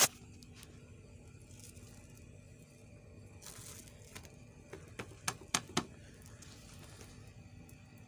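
A hand pressing and smoothing raw roti dough on a metal tawa: soft handling rustle, a sharp tap at the start, and a quick run of three or four taps about five seconds in.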